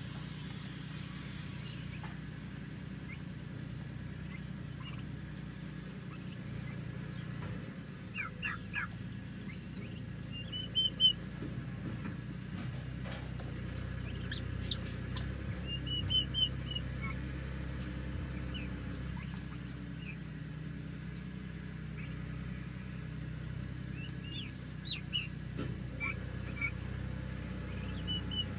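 Young turkey poults chirping now and then, a few short high peeps at a time, over a steady low hum.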